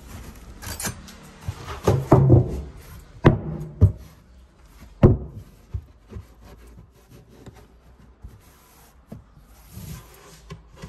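Rubbing and rustling with a series of sharp knocks from things being moved by hand while a car's storage space and its cargo net are rearranged. The knocks are loudest between about two and five seconds in; after that the rustling is quieter.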